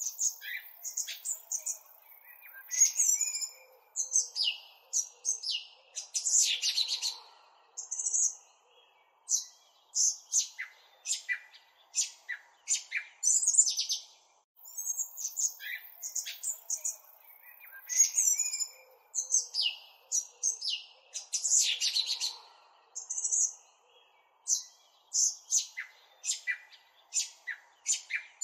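Birds chirping and singing in quick, high calls and trills. The same stretch of birdsong repeats about every fourteen and a half seconds, a looped recording.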